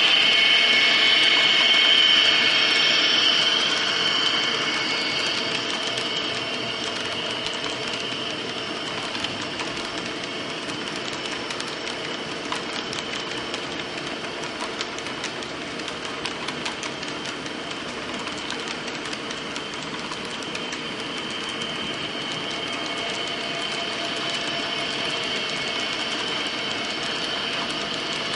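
HO-scale model Conrail Dash 8-40CW diesel with an MRC sound decoder, its diesel engine sound from a small onboard speaker loudest for the first few seconds and then fading as the locomotive moves off. Freight cars rolling over the model track with a steady fine clicking of wheels over rail joints.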